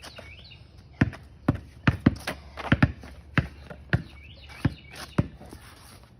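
A basketball bouncing: about ten hard, irregular bounces, roughly half a second apart, as it is dribbled. Faint high chirps come through twice.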